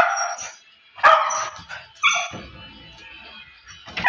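A dog barking at another dog that has come near, four loud single barks spaced about a second apart, with a longer gap before the last.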